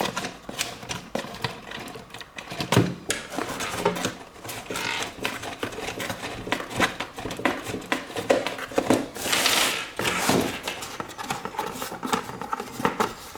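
Hands handling plastic toy parts and packaging: a continual run of small clicks and taps with a few short bursts of rustling.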